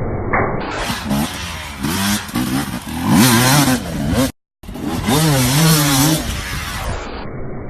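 Two-stroke motocross dirt bike engine revving, its pitch rising and falling repeatedly as the throttle is worked, with a brief cut about four seconds in before another bike's engine carries on revving.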